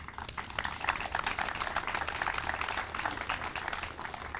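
Audience applauding: many quick claps that build up, hold for a few seconds, then die away near the end.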